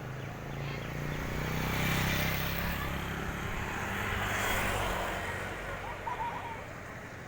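A large road vehicle driving past close by: engine hum and tyre and road noise swell to a peak about two seconds in, peak again near four and a half seconds, then fade away.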